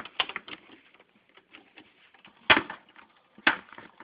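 Hand tools and shock-absorber hardware knocking and clicking while a pickup's rear shock is worked loose: a quick run of small clicks at first, then two sharp knocks about a second apart.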